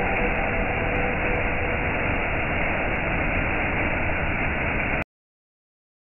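Waterfall: water rushing steadily over rock in a dense, even noise that cuts off suddenly about five seconds in.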